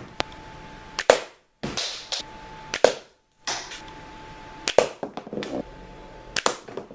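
A cardboard slingshot rifle powered by 24 office rubber bands firing marbles at a plastic Blu-ray case: about five sharp cracks, each shot hitting the case, with short breaks between them.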